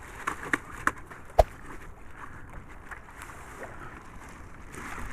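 Wind and choppy sea water washing against a small wooden fishing boat, with four short sharp knocks in the first second and a half, the loudest about a second and a half in.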